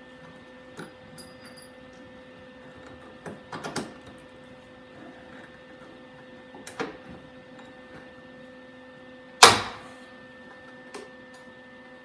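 Hand riveting on sheet-metal bodywork: a few light clicks and knocks, then one sharp loud snap about nine and a half seconds in, a pop rivet's mandrel breaking off as the rivet draws the patch panel tight. A faint steady hum runs underneath.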